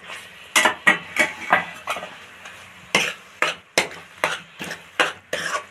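Steel spoon scraping and clinking against a kadhai while a thick grated-carrot mixture is stirred into sugar syrup: about a dozen quick knocks, irregularly spaced, with a short lull about two seconds in.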